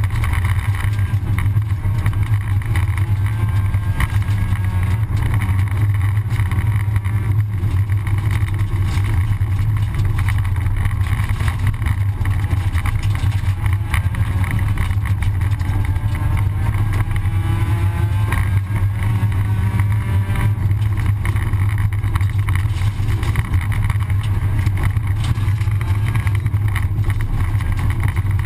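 Rally car engine running hard under load, heard from inside the cabin, a steady loud drone with tyre and gravel noise from the loose road surface. A little past the middle the engine note climbs for a couple of seconds as it revs up.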